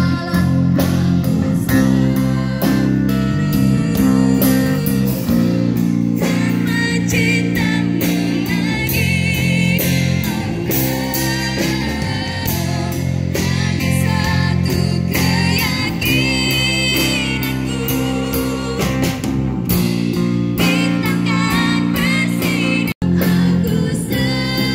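Live band music: a woman singing over a drum kit and guitars. The sound cuts out for an instant near the end.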